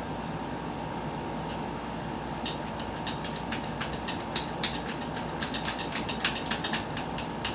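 A run of quick, irregular clicks, several a second, from a screw being driven by hand into the electric fan's plastic parts. It starts sparsely and thickens from about two seconds in, over a steady background hum.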